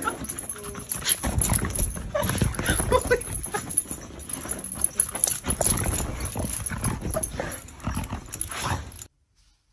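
A dog's noises over irregular clattering and scuffling, which cut off abruptly near the end.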